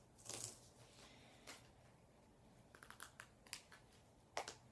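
Faint rustles and small clicks of duct tape being handled and pressed around a PVC pipe, with near silence between them.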